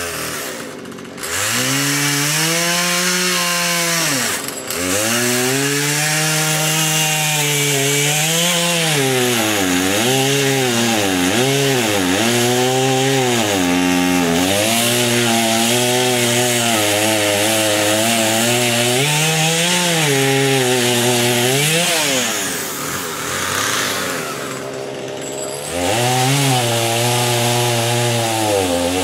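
Chainsaw cutting into the base of a tree trunk, its engine revving up and dropping again and again as it works through the wood. It revs up about a second in, falls back to a lower idle for a few seconds near the end, then revs up again.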